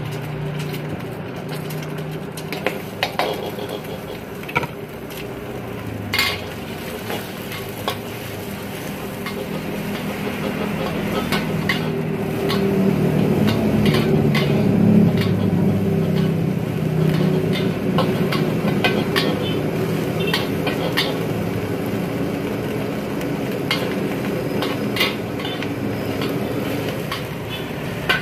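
An egg sizzling in hot oil in a steel wok with a few metal clinks, then a metal wok ladle scraping and clanking against the wok as the egg is stirred and scrambled, with the sizzling and clanking loudest in the middle.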